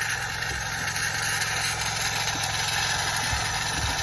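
Philips LatteGo espresso machine frothing and dispensing milk into a glass: a steady hiss over a low steady hum.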